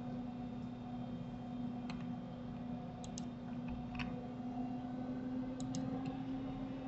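Computer mouse clicking a handful of times, some clicks in quick pairs, while a rig's bones are rotated in Blender, over a steady low electrical hum.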